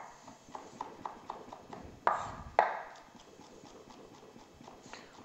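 Chef's knife knocking on a wooden cutting board as it slices bell peppers into julienne strips: a run of light, quick taps, then two louder knocks about half a second apart, then fainter taps.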